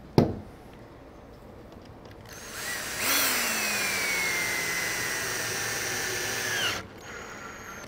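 Cordless drill driving a 2-inch screw into wood with a T20 Torx bit. A knock as the drill is picked up, then about two seconds in the motor whines up, its pitch sinking steadily as the screw draws in, and it stops sharply about four seconds later.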